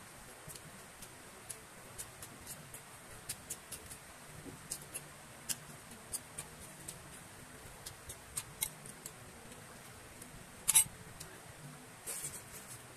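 Close-miked mukbang eating sounds: chewing and wet mouth clicks, irregular and faint, several small ticks a second. A louder smack comes just before eleven seconds in, and a short cluster near the end as a handful of fried rice goes into the mouth.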